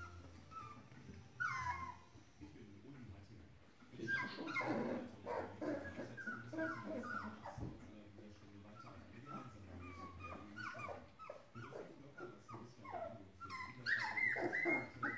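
Young puppies whimpering and yelping: short cries that fall in pitch, one early, then a run of about two a second from about four seconds in, loudest near the end.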